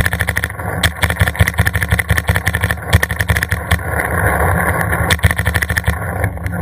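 Paintball marker firing close up in a rapid, continuous stream of shots, several a second, over a steady rushing noise.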